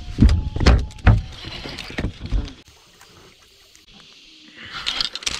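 A run of knocks and thumps from rod and tackle handling against a small fiberglass boat as an angler fights a large fish on a baitcasting reel. Near the end comes a brief splash of water.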